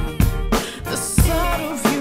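A drum kit played along to a recorded soul-funk song: a groove of kick and snare hits with cymbals over the track's bending melodic line.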